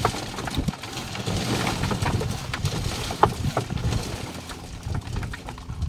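Building-site hand work: a rough scraping clatter with many scattered sharp knocks.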